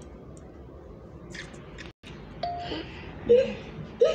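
Steady faint hiss, then after a brief drop-out, a run of clear held electronic tones that step and slide in pitch, like chimes or a musical toy, from a children's programme soundtrack.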